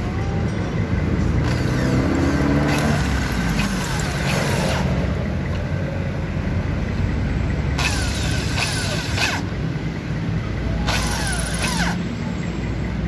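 A handheld power tool runs in about four short bursts, each a second or two long, against a broken exhaust stud in a motorcycle cylinder head. The bursts sit over a steady low hum.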